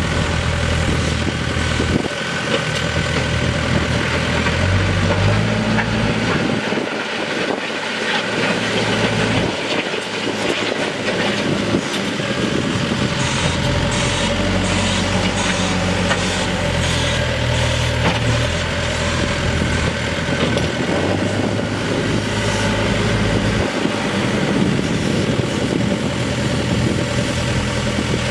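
Case 580N loader backhoe's diesel engine running, its speed rising and falling several times.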